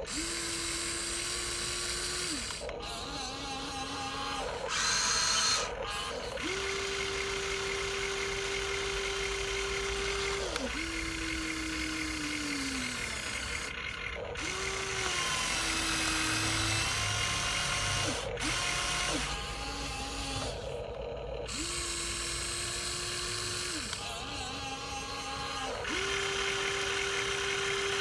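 Small electric motors of a Huina 1953 RC model excavator whining in short runs of a few seconds each. The pitch shifts from run to run as different movements are driven, and some runs slide lower before stopping.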